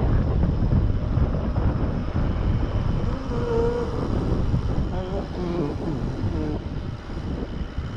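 Wind buffeting the camera microphone as a mountain bike descends a paved road at speed, a steady low rumble. A few brief pitched sounds come through near the middle.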